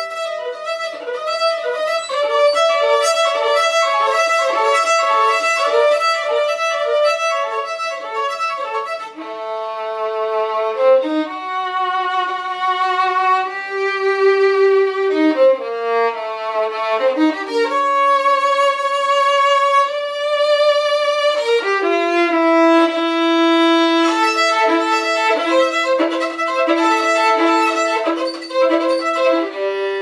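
Solo violin, bowed: a run of quick, short notes, then long held notes with slow slides up and down between them, then quick notes again over a sustained low note near the end.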